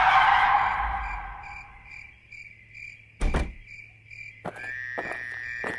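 Crickets chirping steadily under a layered sound-effects track: a loud whoosh fades out over the first two seconds, a single heavy thunk comes a little past halfway, and a steady electric-sounding buzz with a few clicks starts near the end.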